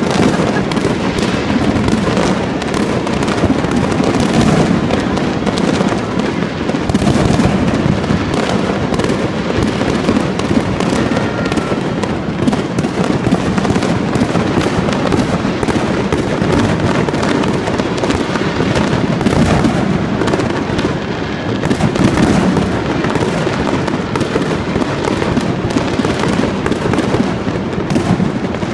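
Fireworks going off in a dense, unbroken barrage: many overlapping bangs and pops, with no pause between them.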